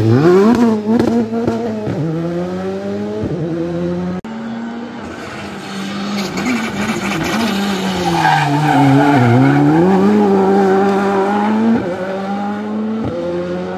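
Rally car engines revving hard. At the start a car accelerates out of a hairpin with quick rises and falls in engine pitch through gear changes. Then another car approaches, gets louder and drops in pitch as it brakes into the bend, with its tyres squealing.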